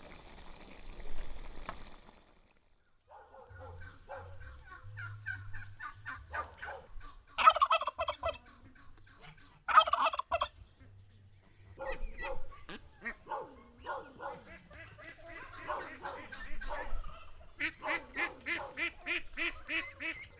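Farmyard poultry calling: a string of calls with two loud ones about 7 and 10 seconds in, and a fast run of repeated calls, about four a second, near the end.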